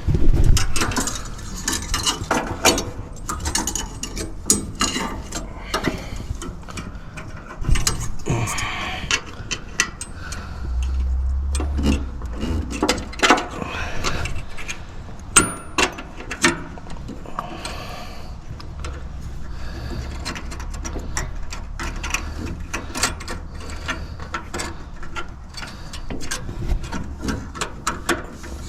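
Irregular clicks, taps and light rattles of hand work on a heat pump's outdoor unit as a new defrost sensor and its wire are fitted and routed, with a low rumble that comes and goes.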